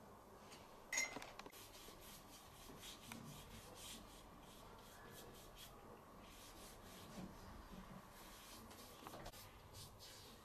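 Faint scratchy strokes of a paintbrush rubbing over canvas, with one sharp click about a second in.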